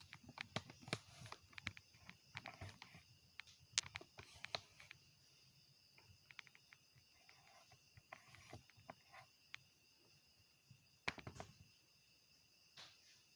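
Insects chirping steadily in the background, very faint, with scattered sharp clicks and light knocks that come in clusters near the start, in the middle and again near the end.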